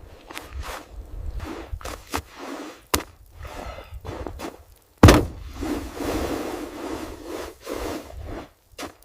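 Scattered knocks and scrapes, with one loud thump about five seconds in followed by a few seconds of scraping and rustling.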